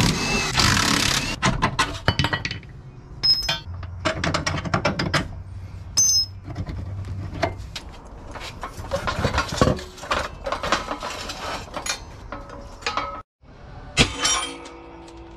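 Hand tools clicking, ratcheting and clanking on steel during a suspension teardown, then steel parts clinking as a lower control arm is set up on a hydraulic shop press. One loud metal knock comes near the end.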